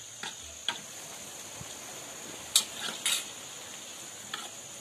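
Metal spatula stirring and scraping onions and tomatoes in a kadai, with a few sharp clinks and scrapes against the pan, the loudest about two and a half and three seconds in. A faint steady sizzle of the frying runs underneath.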